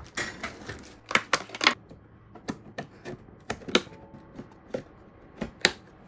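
Irregular sharp clicks and taps of hard computer parts being handled and fitted together during a mini PC build, some in quick runs and a few louder snaps.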